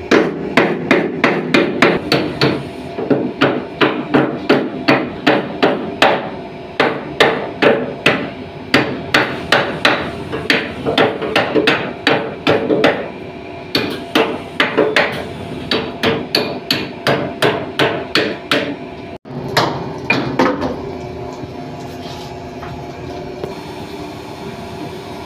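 Hammer blows struck over and over, about two a second, with a brief break about three-quarters of the way through before they thin out and stop. A steady hum runs beneath them and carries on alone for the last few seconds.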